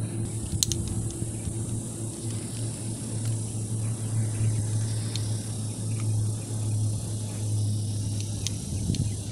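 Distant jet airliner taking off, heard as a steady low rumble, with a high steady buzz and a few faint high chirps above it.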